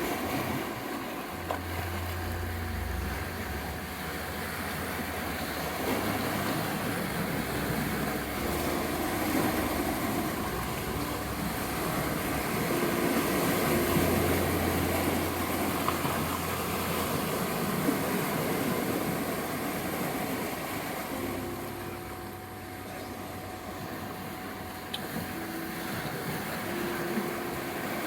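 Sea surf washing ashore as a steady, rolling wash of noise, with a thin steady 741 Hz tone and soft sustained low notes laid over it.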